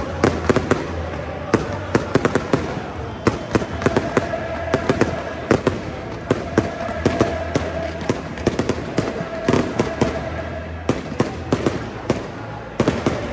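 Fireworks going off in rapid, irregular bangs and crackles, several a second, over a steady background din.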